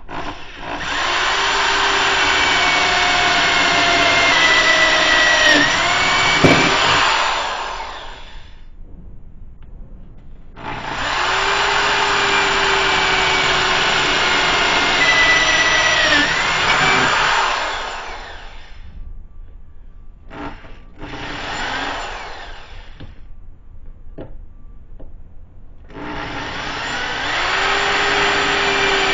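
Electric drill running in repeated bursts as it bores into a 1/8-inch steel plate with a small bit: three long runs of several seconds each and one short one, with pauses between. The motor's pitch dips briefly under load near the end of the first two runs.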